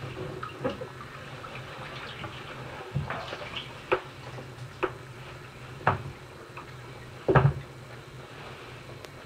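Bathwater sloshing and splashing as a fully clothed person shifts about lying in a filled bathtub, with a handful of short sharp splashes, the loudest about seven seconds in, over a steady low hum.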